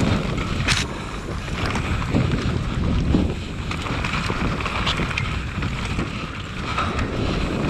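Wind buffeting the microphone during a fast downhill mountain-bike run, a steady rumbling rush with a few sharp clicks and knocks from the bike over rough ground.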